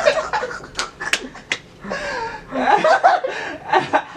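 People laughing and snickering in breathy bursts, with a few sharp clicks between about one and one and a half seconds in.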